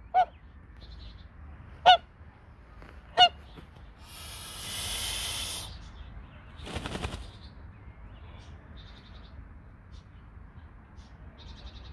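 White domestic goose honking: three loud, short honks about a second and a half apart, followed by a long breathy hiss lasting over a second.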